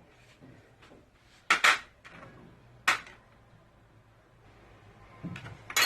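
A few sharp knocks and clinks of kitchen things against a cooking pot: a pair about a second and a half in, one more about a second later, and another pair near the end, with quiet between.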